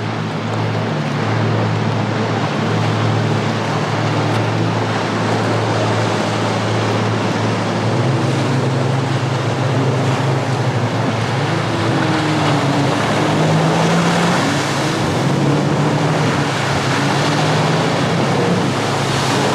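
Jet ski engine running over a haze of water and wind noise. Its note holds steady at first, then climbs and wavers from about halfway through as the throttle changes.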